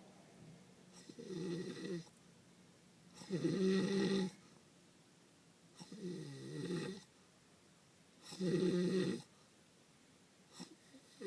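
A sleeping man snoring: four long, rattling snores, each about a second long, coming roughly every two and a half seconds with quiet breaths between.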